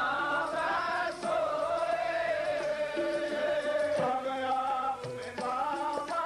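Sikh kirtan: male voices singing a Gurbani hymn in long held notes, with harmonium accompaniment.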